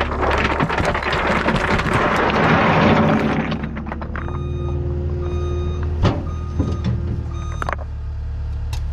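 Heavy equipment engine running steadily, with a rough rushing noise for the first three seconds or so, then a backup alarm beeping and a few sharp knocks.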